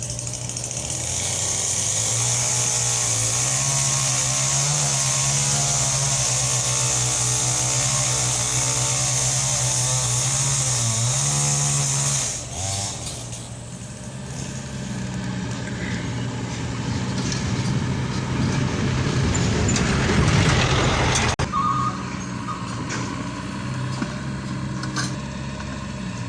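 Mini Caterpillar excavator's diesel engine running at working revs, its pitch rising and dipping as the machine works. The sound changes abruptly about twelve seconds in and again about twenty-one seconds in.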